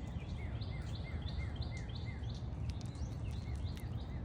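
A bird calling in a repeated series of short chirps, about three a second, over a steady low rumble.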